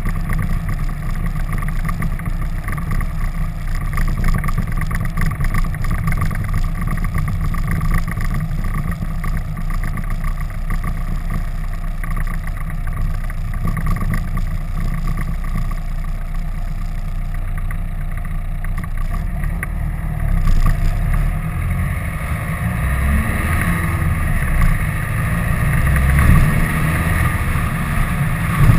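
Wind rushing over the microphone of a motorcycle-mounted camera while riding, with the motorcycle's engine running underneath. The low rumble grows rougher and more uneven in the last few seconds.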